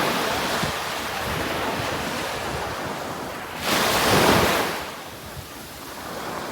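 Ocean surf washing steadily onto a beach, with one wave breaking louder a little past halfway and then fading back.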